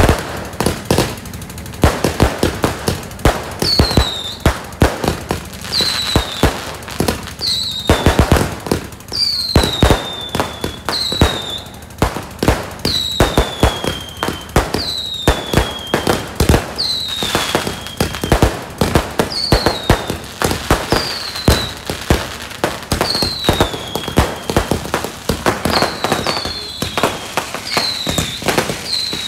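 Aerial fireworks going off in quick succession: repeated launch bangs and crackling star bursts. From about four seconds in, a short whistle that falls in pitch comes every second or two.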